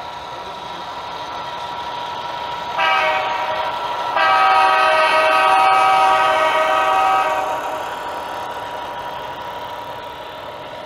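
Horn of an HO-scale model diesel locomotive, played through its onboard sound decoder: a short blast about three seconds in, then a longer, louder blast, over the steady hum of the model train running past.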